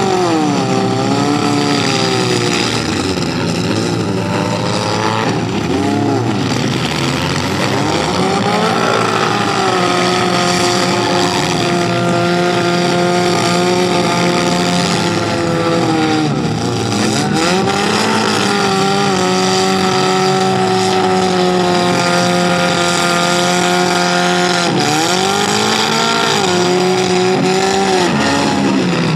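Demolition derby cars' V8 engines revving hard. The pitch drops and climbs again several times and is held at steady high revs for a few seconds at a stretch, with the last dip and climb near the end.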